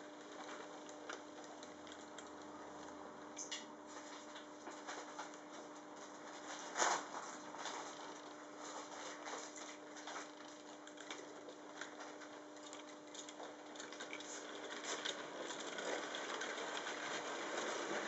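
Fleischmann model train running slowly on metal track, its wheels clicking and rattling over the rail joints over a steady electric hum. There is one sharper click about seven seconds in, and the rattling grows louder near the end as the train picks up speed.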